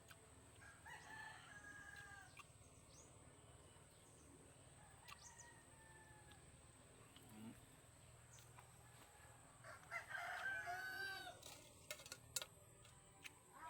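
Rooster crowing in the background: a faint crow about a second in and a louder, longer crow near ten seconds in. A few short sharp clicks follow near the end.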